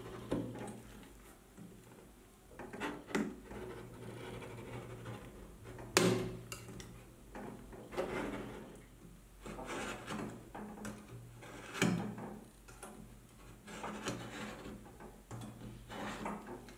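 A hand-held blade scoring thin 0.4 mm brass sheet along a steel ruler: repeated scraping strokes, roughly one every two seconds, with a couple of sharper knocks of the tool against the metal. A faint low hum lies underneath.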